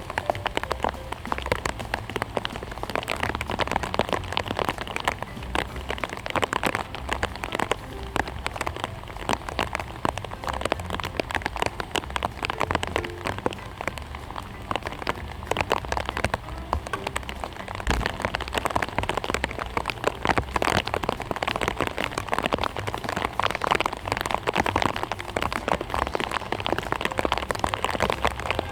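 Rain falling on a surface: a steady, dense patter of many small taps, with a low rumble underneath.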